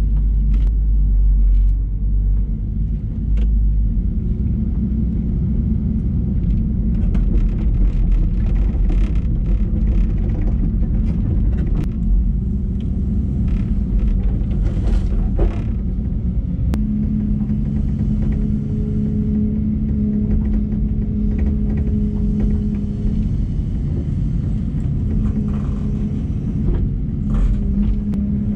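Cummins diesel engine of a LiuGong 922E hydraulic excavator running under load while digging, a steady low rumble with scattered knocks and clanks from the bucket and boom. About halfway through, a steadier, higher drone sets in.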